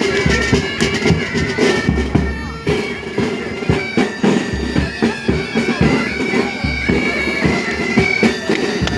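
Bagpipes playing a march tune over their steady drones.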